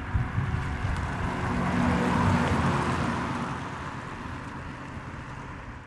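Hyundai IONIQ Electric passing at 15 mph on a wet road with its Virtual Engine Sound System on: a low drone from the VESS speaker over the hiss of tyres on wet tarmac, growing louder to a peak about two seconds in, then fading as the car moves away.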